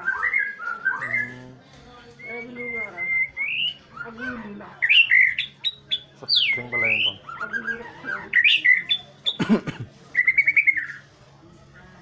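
White-rumped shama (murai batu) singing a varied song of clear whistles, quick repeated notes and rising and falling glides, with a rapid trill a little before the end. A faint steady low hum runs underneath.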